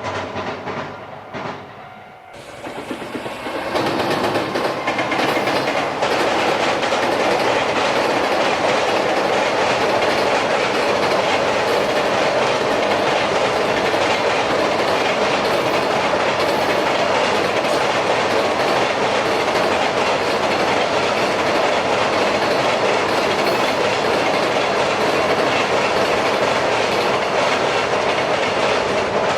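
Train crossing a steel railway bridge: wheels running over the bridge rails. The sound swells about three seconds in and then stays loud and steady.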